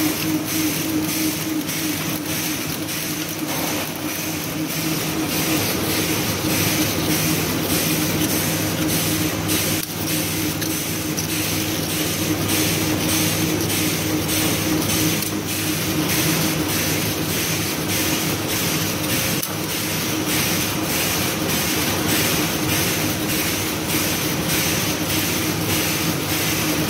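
Automatic tableware packing machine running: a steady mechanical hum with a regular clack about twice a second, about one stroke per pack wrapped.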